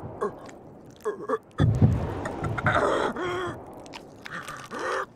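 Anime voice acting: a young woman's pained gasps and strained cries over crunching body sound effects, with a loud low rumble about a second and a half in. She is a half-demon pushed past her limit and transforming into a monster.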